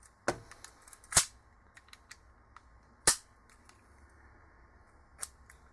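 Sharp metallic clicks of a WE TT-33 gas blowback airsoft pistol being reassembled, its slide and slide stop fitted back onto the frame. About four distinct clicks with a few fainter ticks between, the loudest about three seconds in.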